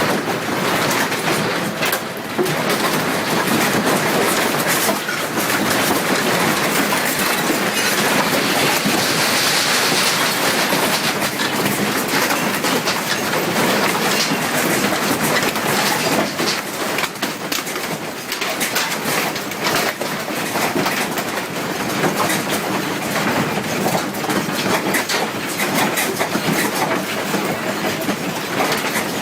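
Objects rattling and clattering without a break under earthquake shaking, a dense din full of sharp knocks and clicks.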